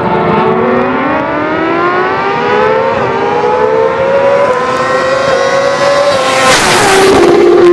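A motorcycle accelerating hard toward the listener, its engine pitch climbing through the gears with a couple of shifts, then a rush as it passes close and the pitch drops suddenly near the end.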